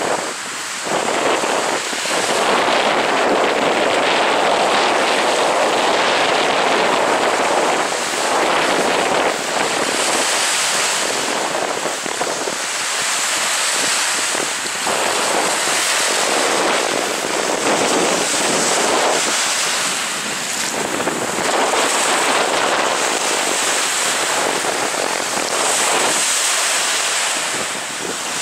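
Waves washing onto the reservoir beach, swelling and easing every few seconds, with wind buffeting the microphone.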